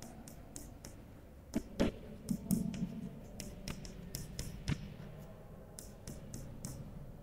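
A piece of chalk writing on a blackboard: a quick, irregular run of short taps and scratches as each letter is stroked on.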